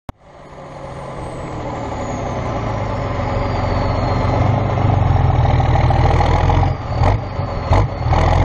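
Heavy diesel engine running and growing steadily louder, with a high whistle that slowly falls in pitch. Its sound dips briefly twice near the end, then it cuts off abruptly.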